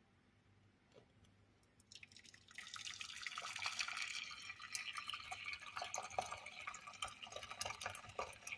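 Water pouring and splashing into a saucepan as it is filled with a litre of water, starting about two seconds in and running on steadily.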